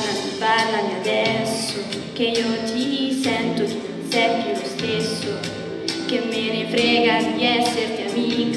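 A young woman singing an Italian pop ballad into a handheld microphone, her held notes wavering with vibrato.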